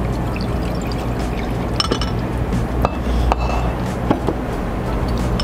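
Soup liquid sloshing and pouring in a bowl, with a few light clinks of spoon and tableware over a steady low hum.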